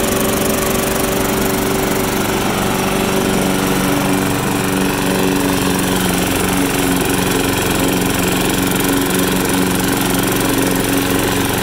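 Lawn-Boy Silver Series EasyMulch walk-behind mower engine running steadily while the mower is pushed across grass, now running after its loose blade was tightened. The engine note shifts slightly about four seconds in as it moves onto the lawn.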